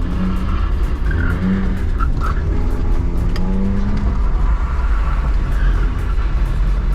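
BMW E46 320i's 2.2-litre M54B22 inline-six engine under hard driving, its pitch rising and falling as the throttle is worked through a drift, over a steady low rumble of road and tyre noise, heard from inside the car.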